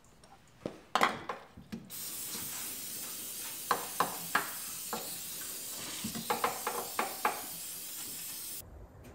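Hands working at a garden tractor's spin-on hydraulic filter: a few sharp knocks, then light clicks and taps over a steady hiss that cuts off abruptly near the end.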